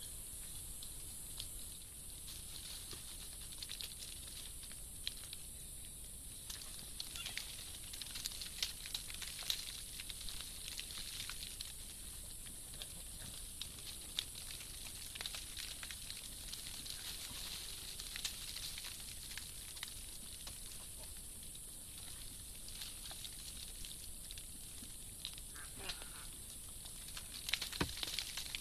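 Rainforest background: a steady high-pitched hiss with many short clicks and ticks scattered through it, and a louder knock near the end.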